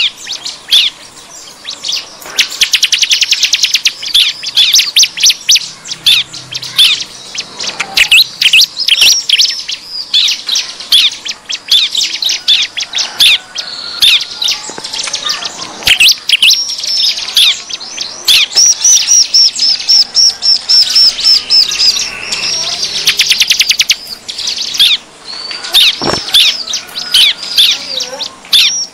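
Bar-winged prinias (ciblek) chattering noisily: a dense run of high, repeated chirps broken by fast rattling trills. This is the agitated 'ribut' ciblek call used as a lure to draw wild ciblek in.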